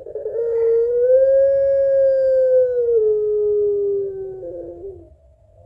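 A puter pelung ringneck dove giving one long drawn-out coo of about five seconds, the 'long voice' this strain is kept for. The pure tone rises slightly at first, then drops a step about three seconds in and slides lower before breaking off.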